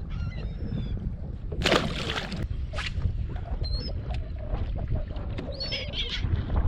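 Wind rumbling on the microphone, with seagulls calling several times in short, bending high calls. A brief loud rush of noise comes about two seconds in.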